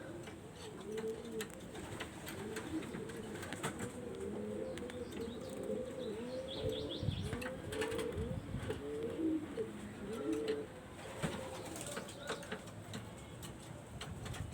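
Several pigeons cooing at once, with short rolling coos overlapping one another, plus occasional wing flaps and clicks. The cooing thins out after about ten seconds.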